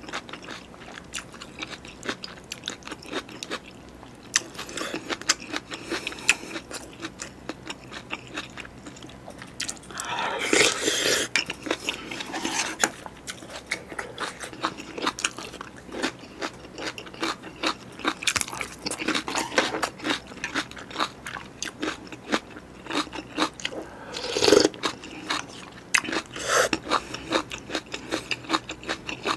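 Close-miked chewing and crunching of beef bulgogi and cubed radish kimchi (kkakdugi), with many irregular wet mouth clicks. There are two louder, longer bursts of noise, about ten seconds in and again about twenty-four seconds in.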